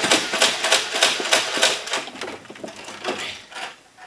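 Toy foam-dart blasters firing in rapid succession: a quick run of clicks and snaps, about five or six a second, that thins out after about two seconds.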